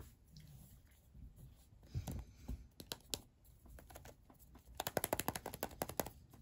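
Plastic toy capsule handled on a wooden table: a few soft knocks and clicks, then, near the end, about a second of quick sharp rattling clicks, about ten a second, as the capsule is shaken.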